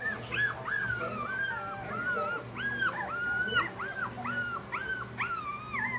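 Australian Shepherd puppy whining and crying in a quick run of short, high-pitched whines, about two or three a second.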